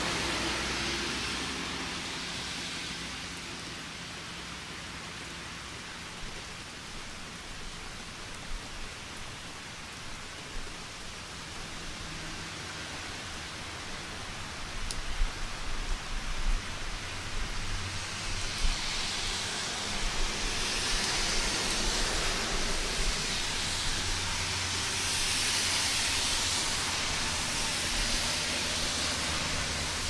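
Rain falling steadily, a dense even hiss that grows louder in the second half, with a few sharp spikes a little past the middle.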